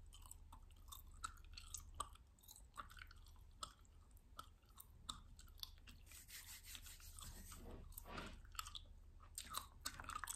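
Chewing gum close to the microphone: quiet, irregular mouth smacks and clicks.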